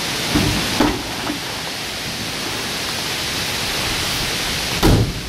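Steady hiss of rushing noise with no clear source, broken by a few short low thumps about half a second in, near one second, and a louder one near the end.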